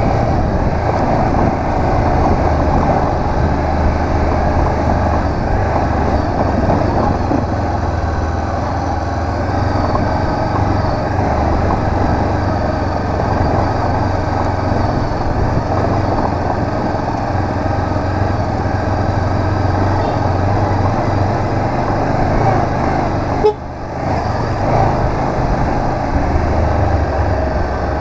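Honda CB500X's parallel-twin engine running steadily under way, with road and wind noise. There is one sharp knock and a brief dip in level near the end.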